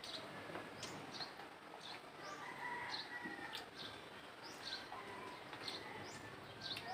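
Birds calling: short, high, falling chirps repeated about once a second, with a fainter, longer call about two to three seconds in.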